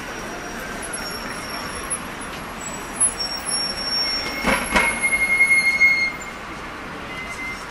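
City street noise with thin high-pitched squeals, getting louder midway, with a couple of knocks and a steady high tone held for about two seconds before it drops back.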